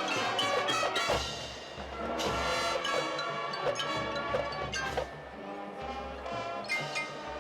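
Instrumental music with brass and percussion.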